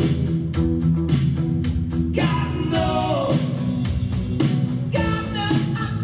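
Rock song with a sung vocal and guitar over a steady beat; the voice slides through a held line in the middle.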